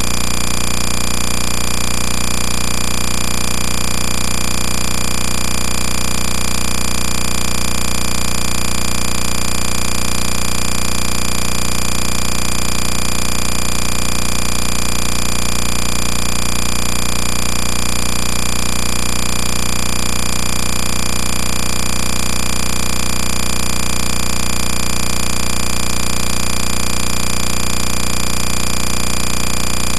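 Loud, steady mechanical running noise that stays the same throughout, with a faint regular pulse underneath.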